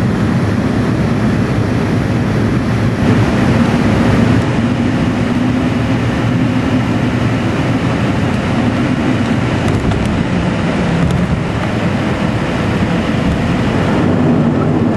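Cabin noise of a Fokker 50 turboprop airliner on landing: a steady drone from the turboprop engines and propellers over rushing air. It gets somewhat louder and brighter about three seconds in.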